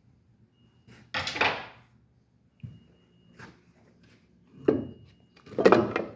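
Handling noises from the stopped trim-milling machine: a handful of separate knocks and scrapes of wood and metal, the loudest near the end.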